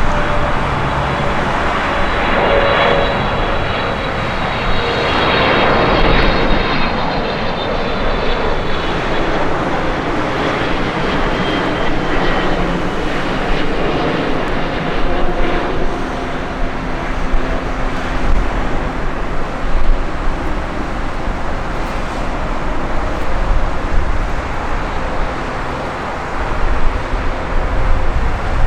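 Boeing 777F freighter's GE90 jet engines running as the aircraft passes, a dense rumble with a high fan whine that falls in pitch during the first ten seconds or so, then a steadier roar.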